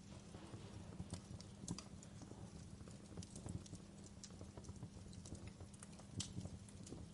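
Burning wood crackling in a fireplace: irregular sharp pops and snaps over a low, steady rumble.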